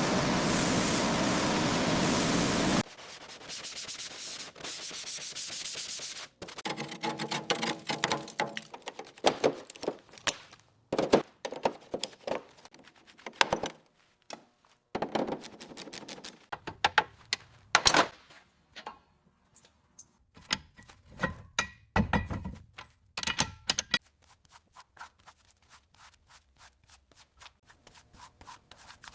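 Restoration work on a car body: a loud steady hiss for about the first three seconds, then a long run of irregular scraping, rubbing and sharp knocking sounds.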